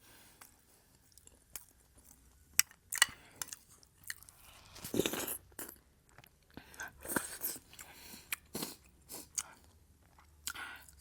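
A person chewing food close to the microphone, with scattered wet mouth clicks and smacks and a louder burst about five seconds in.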